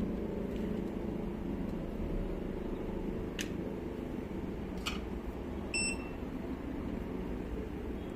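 Steady low mechanical hum, with two sharp clicks about three and a half and five seconds in and a single short, high electronic beep near six seconds.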